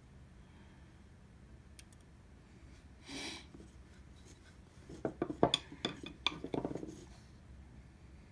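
A steel wood chisel being picked up and handled at the workbench: a brief scrape about three seconds in, then a quick run of sharp metallic clicks and taps over about two seconds.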